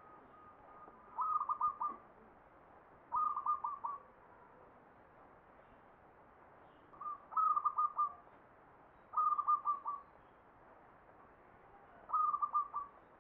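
Zebra dove (perkutut) cooing: five short phrases of quick stuttering coos, each lasting under a second and coming a couple of seconds apart. It is singing in the song style that Javanese keepers call ngepat, Mataram standard.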